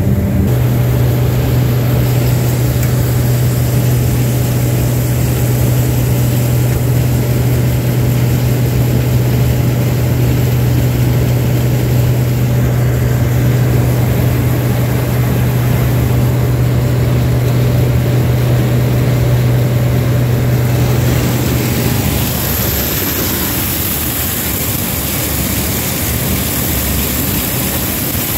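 Combine harvester running steadily under load while harvesting corn, with a strong steady hum. About 22 seconds in, the hum drops away and a higher hiss takes over.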